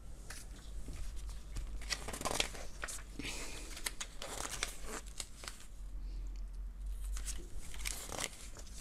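Folded paper instruction leaflets being unfolded and handled: paper rustling and crinkling in short, irregular rustles.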